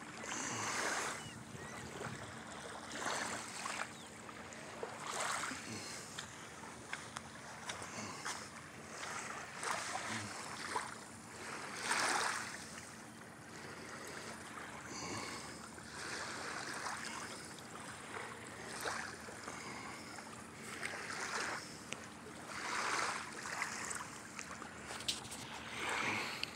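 Small waves lapping at the shore and against a beached boat's hull, a soft wash that swells and fades every couple of seconds, with a faint steady hum underneath.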